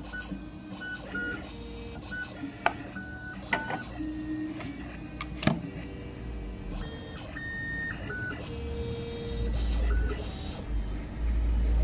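KYDZ Alien CNC key-cutting machine moving its axes into position: a string of short, steady motor whines at several different pitches, starting and stopping, with a few sharp clicks.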